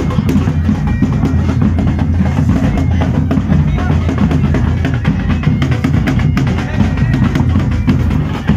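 Loud music driven by heavy drumming and bass drum, playing steadily without a break.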